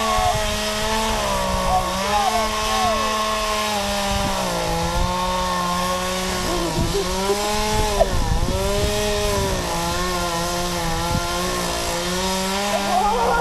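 Two-stroke chainsaw running at high revs while cutting wood, its engine pitch sagging and recovering several times as the chain bites under load.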